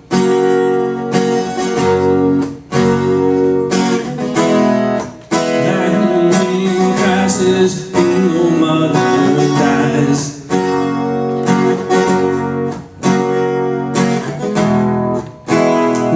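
Acoustic guitar strummed in steady chords, with brief breaks in the strumming every few seconds.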